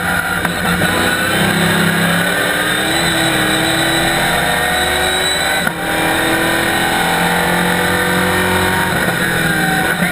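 Chevrolet Camaro race car's ZZ4 small-block V8 running hard at racing speed, heard inside the stripped cockpit, its pitch climbing under acceleration. There is a brief dip in the engine sound about six seconds in before it pulls on again.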